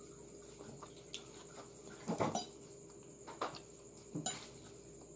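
Metal fork clinking and scraping against a ceramic plate while twirling spaghetti, a few short clatters with the loudest about two seconds in, over a faint steady hum.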